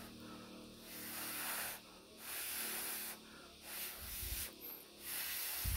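About four breathy, hissing huffs of air in and out through the mouth, each under a second, as a mouthful of hot grilled banana is cooled while eating. A couple of dull low bumps come near the end.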